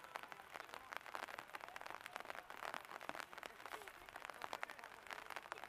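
Flooded river rushing and splashing, heard as a dense, irregular crackle of water.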